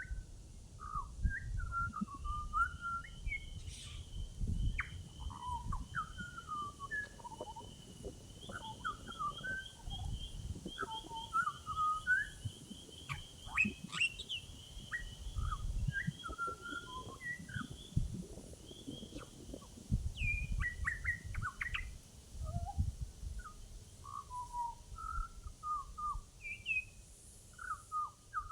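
A butcherbird sings a long, varied run of short fluting, whistled notes that glide up and down. A faint rapid chatter runs higher up through the first two-thirds, and a low rumble lies underneath.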